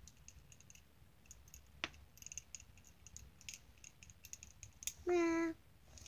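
Faint scattered clicks and taps from a pen and notebook being handled, then, about five seconds in, a short hummed note from a child's voice, held on one pitch for about half a second.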